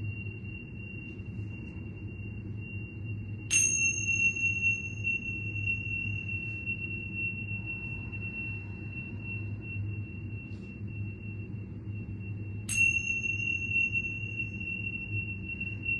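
A steady high ringing tone over a low hum, with two bright metallic chime-like strikes about nine seconds apart, each ringing out for a few seconds.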